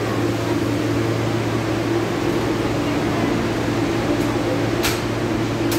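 Steady hum inside an R160B Siemens subway car, from its air conditioning and onboard equipment, with a couple of brief high clicks near the end.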